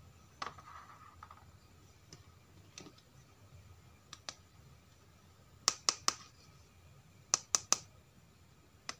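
Hard plastic toy animal figures clicking and knocking against each other and the plastic tub as they are handled and set down. The clicks are scattered, with two quick runs of three about two-thirds of the way through and near the end.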